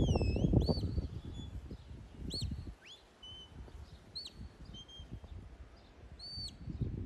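Shepherd's whistle commands to a working sheepdog: a string of short, clear, high whistled notes, some sliding up, some down, several rising, holding and dropping, spaced out with pauses between them.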